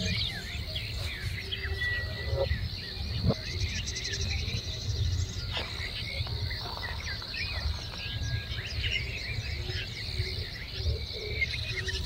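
Many short bird chirps over a steady high insect drone, with a low rumble underneath. A single short knock comes about three seconds in.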